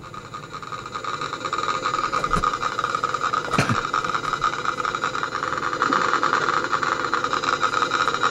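A steady mechanical hum, like an engine running, swelling over the first two seconds and then holding. There is a sharp click about two and a half seconds in and a louder one about three and a half seconds in.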